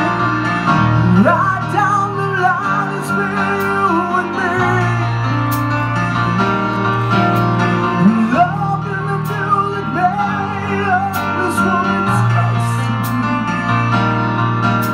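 Rock band music with a lead vocal over long held bass notes, with cymbal crashes now and then.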